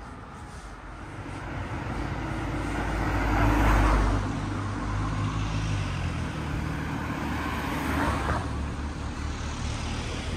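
Cars driving past on a street: engine hum and tyre noise that swell to a peak about four seconds in and again about eight seconds in, then fade.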